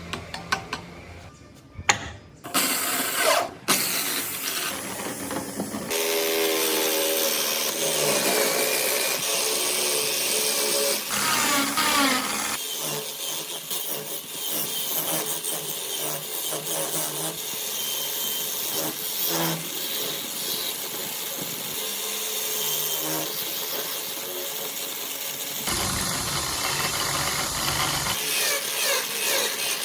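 Woodworking power tools running on wood in a string of short shots that cut abruptly from one to the next, after a few sharp clicks near the start.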